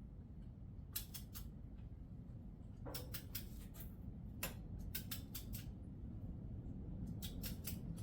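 Ratchet of a click-type torque wrench clicking in short runs of a few quick clicks every second or two, as it is swung back between pulls while a cylinder head bolt is tightened.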